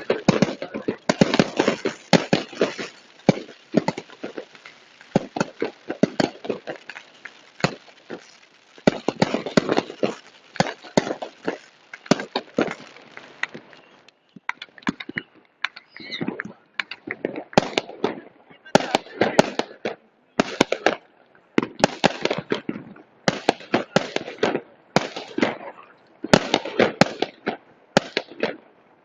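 Fireworks salute: rapid volleys of sharp bangs and crackles in dense clusters, thinning to a short lull about halfway through before the volleys pick up again.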